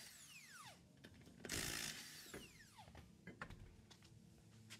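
Cordless impact wrench spinning the 21 mm lug nuts off a front wheel: one short burst winds down with a falling whine at the start, and another about a second and a half in winds down the same way. A few light clicks and knocks follow.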